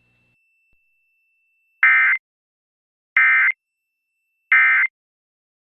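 Emergency Alert System end-of-message (EOM) code: three short bursts of SAME digital data tones, each about a third of a second long and about a second apart, marking the end of a required monthly test message.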